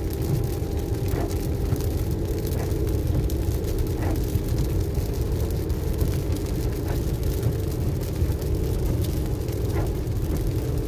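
Steady road noise inside a moving car on a wet highway: a low drone of engine and tyres, with a few faint ticks.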